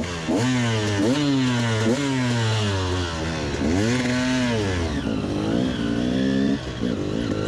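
KTM 300 EXC two-stroke enduro engine revving up and easing off about four times as the bike accelerates and weaves, then running at a steadier pitch over the last couple of seconds.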